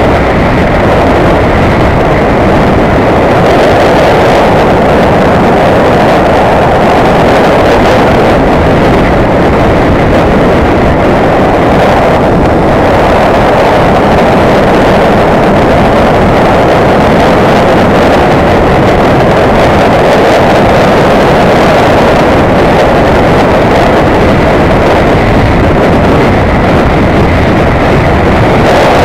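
Motorcycle riding steadily along a road: a loud, unbroken rush of wind on the microphone mixed with engine and road noise.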